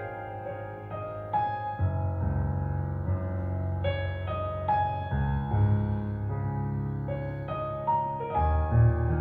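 Solo piano introduction to a Chinese pop ballad, single struck notes ringing over deep bass notes that come in about two seconds in and again near five and eight seconds, played back through hi-fi floor-standing loudspeakers.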